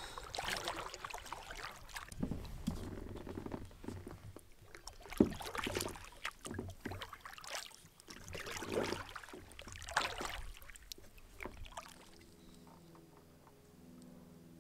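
Canoe paddle strokes in water: irregular swishing and splashing as the blade pulls through and lifts out, with a sharp knock about five seconds in. The splashing dies down near the end, leaving a quieter, steadier background.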